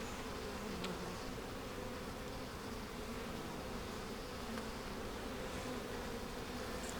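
Honeybees buzzing in a steady hum around an open hive during a frame inspection.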